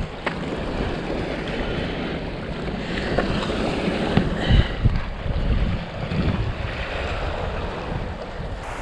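Seawater washing against the shoreline rocks, with gusts of wind rumbling on the microphone.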